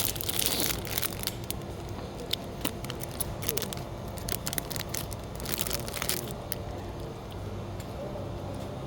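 Irregular light clicks and crinkling from handling items and packaging, over a steady low hum.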